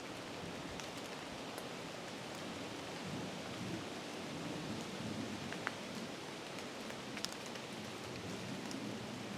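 Steady rain falling in the woods, a soft even hiss with a few light ticks of drops.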